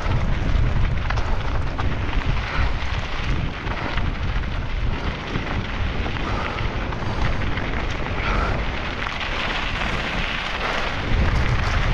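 Mountain bike descending fast over rough, rocky ground: wind buffeting the microphone, with tyres crunching and the bike rattling in a steady run of clicks and knocks.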